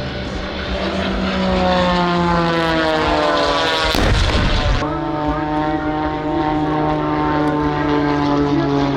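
Propeller airplane flying past, its engine drone gliding down in pitch as it passes, with a short loud rush about four seconds in. A steady engine drone continues after that.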